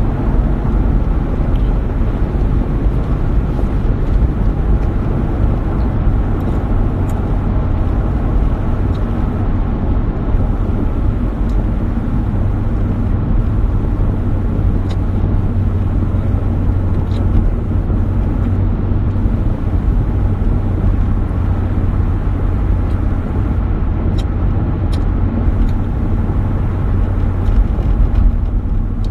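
Steady low rumble of vehicle running noise, even throughout, with a strong low hum and no speech.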